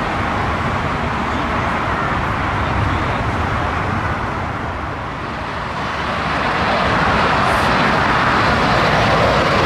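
Jet airliner engine noise: a steady rumble from a narrowbody airliner rolling out on the runway after landing. From about six seconds in, a louder rushing engine noise follows from a KLM Embraer regional jet approaching to land.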